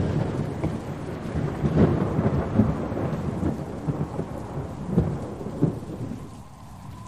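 Thunder rumbling over rain, with several louder cracks, starting suddenly and slowly fading away near the end.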